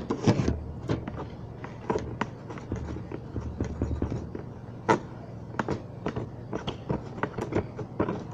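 Irregular small clicks and knocks of objects being handled on a table, with one sharper knock about five seconds in.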